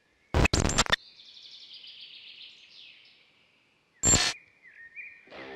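A quick run of loud sharp cracks about half a second in and another about four seconds in, with bird chirping and trilling between them. Guitar music starts near the end.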